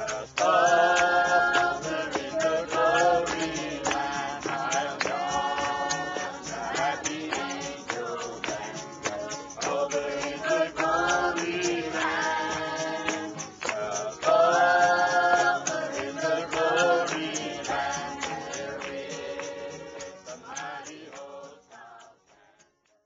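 A congregation singing a gospel hymn over a steady, sharp beat, the sound fading out near the end.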